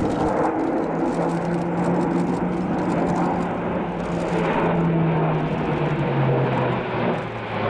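Airbus A400M Atlas's four Europrop TP400 turboprops and counter-rotating propellers droning in a display flypast, with a steady low propeller hum. The hum drops in pitch about two-thirds of the way through.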